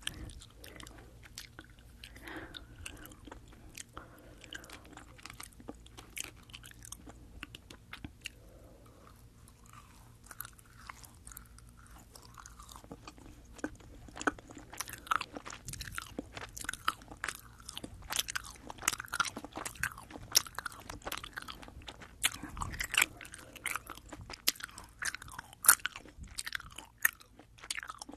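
Fini sugar-coated sour gummy candies being chewed close to a binaural microphone, heard as many small mouth clicks and chewing noises. The chewing is sparse and quiet at first and becomes denser and louder from about halfway through.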